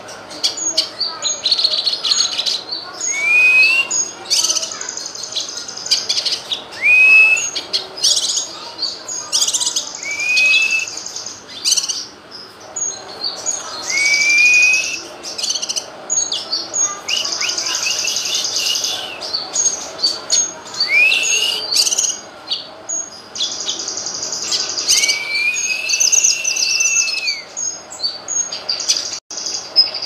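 Cucak kinoy (blue-masked leafbird) singing. A rising whistled note is followed by a rapid chatter of high notes, repeated every few seconds, with one longer held whistle near the end.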